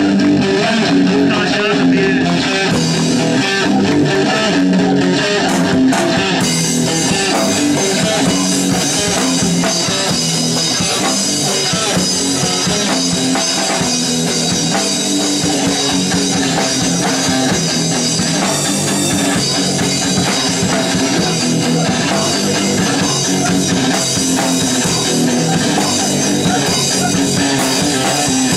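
A fast crust punk band playing live: electric guitar and drum kit going flat out. The sound gets brighter and denser about six seconds in.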